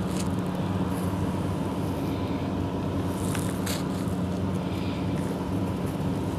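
Fingertips tapping and pressing on soft bread rolls, a few brief soft scratchy sounds, over a steady low hum.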